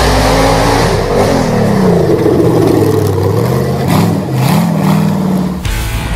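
Engine of an extreme 4x4 trial buggy revving hard, its pitch rising and falling as it works up a muddy climb; the sound breaks off abruptly near the end.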